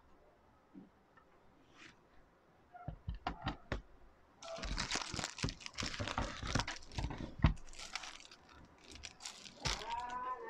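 A few light clicks, then about six seconds of plastic packaging crinkling and rustling as it is handled and pulled open.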